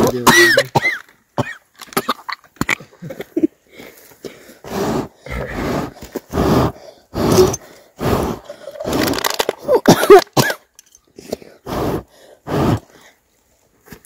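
Short, irregular bursts of coughing, grunting and throat-clearing, each under a second, with a few brief voiced cries among them.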